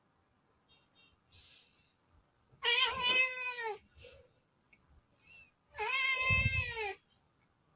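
A cat meowing twice: two drawn-out meows about a second long each, a few seconds apart, the pitch rising and then falling in each.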